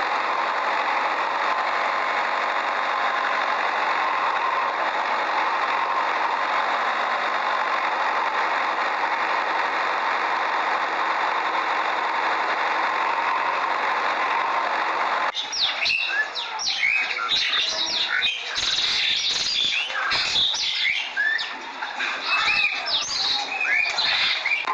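A steady motor hum with a faint whine cuts off abruptly about fifteen seconds in. Many birds chirping take its place, in quick high calls, and the hum comes back at the very end.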